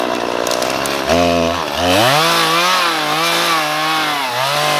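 Two-stroke chainsaw running at high revs, its engine pitch rising sharply about a second in, then dipping and recovering repeatedly as it works through brush, and falling away near the end.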